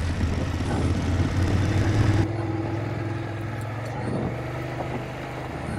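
Motorcycle engine pulling hard up a steep dirt-trail climb, then dropping abruptly about two seconds in to a quieter, steadier running.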